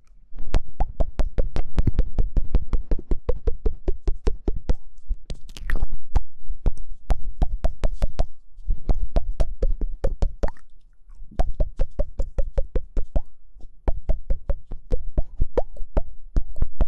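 Rapid runs of short clicks, about six a second, each with a brief hollow note whose pitch drifts a little, broken by short pauses every few seconds.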